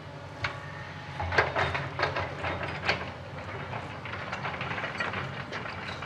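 Hyundai 210LC-9 hydraulic excavator's diesel engine running steadily, with a run of metallic clanks and rattles from about one to three seconds in and lighter rattling after, as the machine raises its bucket and moves off on its steel tracks.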